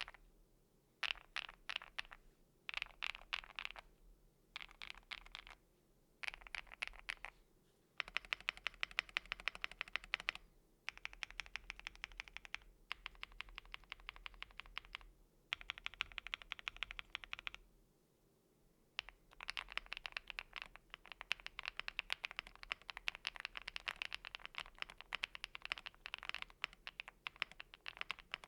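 Typing on a Chilkey ND75 mechanical keyboard with lubed Gateron Smoothie linear switches, a polycarbonate plate and PBT double-shot keycaps. For the first eight seconds it comes in short bursts of keystrokes. After that come longer runs of fast, continuous typing with brief pauses.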